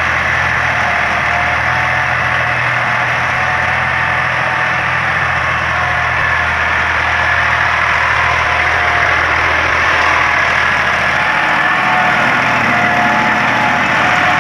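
Massey Ferguson 260 turbo tractor's diesel engine running steadily under load while pulling a tine cultivator and levelling plank through tilled soil.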